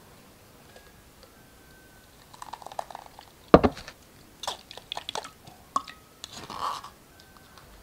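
A stainless steel mesh sieve is set down on a glass bowl with one sharp knock, then a metal spoon scrapes and presses wet blended carrot, ginger and tomato pulp through the mesh in short bursts of scraping and clicking.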